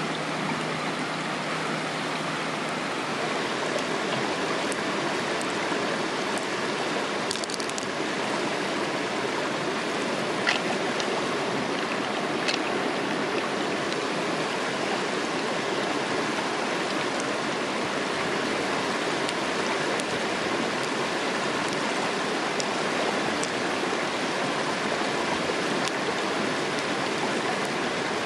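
Shallow stream rushing steadily over rocks, with a few light clicks here and there.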